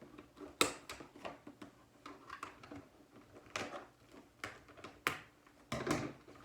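Toy blaster's box being opened and handled: scattered taps, clicks and rustles, with a sharper snap about half a second in and a longer rustling scrape near the end.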